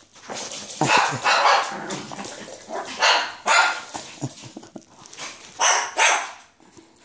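Dog barking in play: several loud barks, a second or two apart.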